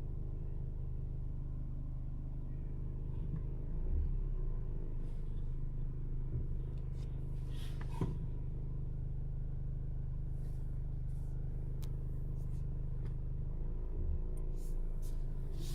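Mercedes All-Terrain engine running steadily, with scattered light rattling clicks from under the hood; the sharpest click comes about halfway through and several more come near the end. The owner puts the rattle down to poor build quality and too much plastic.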